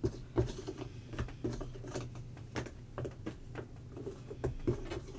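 Small cardboard jigsaw puzzle pieces being handled and set down by hand: a string of light, irregular clicks and taps over a low steady hum.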